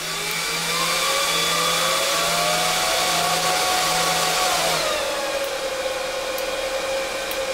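Cooling fans of the 2 kW bench power supplies running hard under load, with a whine rising in pitch and a low buzz. About five seconds in the buzz stops and the whine drops and settles, which the operator believes is one of the supplies going down at its power limit.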